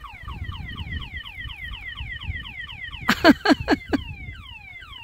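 Electronic car alarm siren sounding over a low wind rumble, repeating rapid falling chirps at about four a second. A short burst of several much louder sharp sounds comes about three seconds in.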